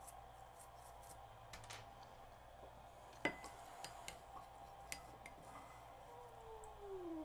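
Faint scrubbing of a small bristle brush in a glass bowl of acetone, with a few light clinks of the brush's metal ferrule against the glass, the sharpest about three seconds in. Near the end a faint low tone slides down in pitch.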